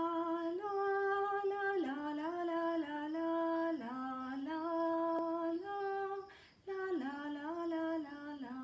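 A woman singing a wordless melody in held notes that step up and down, with a short break for breath a little past the middle, ending on a long low note.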